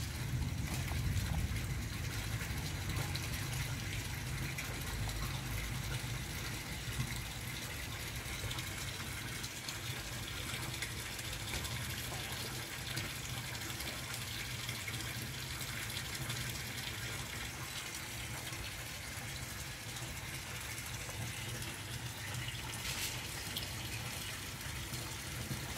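Steady background hum and hiss, even throughout.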